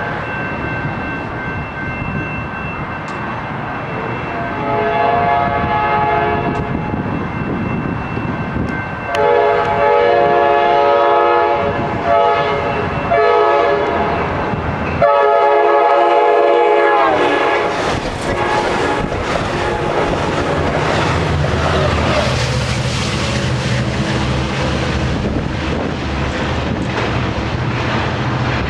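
Amtrak passenger train's multi-chime air horn sounding the grade-crossing pattern: two long blasts, a short one and a long one, the last sliding down in pitch as it ends. The train's low running noise and wheel clatter on the rails follow, with a brief high squeal about two-thirds through.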